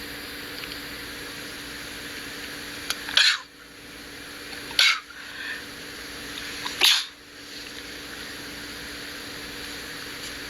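A person sneezing three times in a row, the sneezes about a second and a half to two seconds apart, as part of a sneezing fit.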